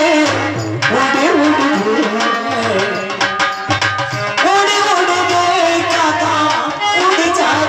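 Loud amplified Indian folk devotional music: tabla drumming under a gliding melody sung into a microphone.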